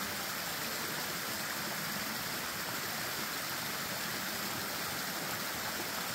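Woodland stream running over a series of small cascades: a steady, even rush and splash of water.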